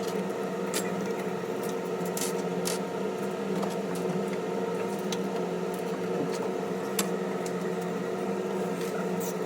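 A steady hum holding a few fixed pitches, with about six short, sharp clicks scattered through it.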